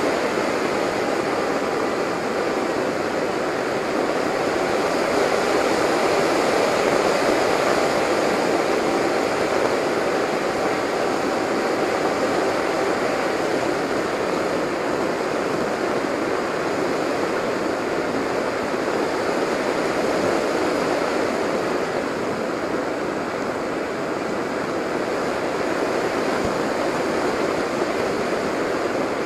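Steady rushing wind noise from airflow over a camera riding on a low-flying RC delta-wing model, with a faint thin whine under it that fades out about halfway through.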